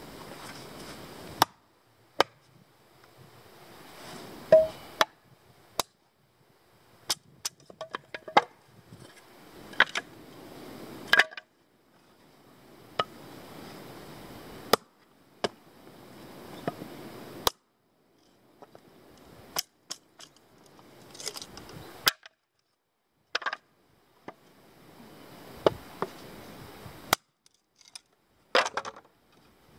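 Hatchet splitting firewood into kindling on a log chopping block: sharp, irregular wooden knocks, about fifteen strikes, some in quick runs of several.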